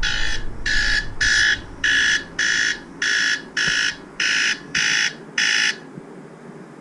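Smartphone alarm beeping: about ten sharp electronic beeps in quick pairs, repeating about every 1.2 seconds, which cut off suddenly near the end when the alarm is switched off.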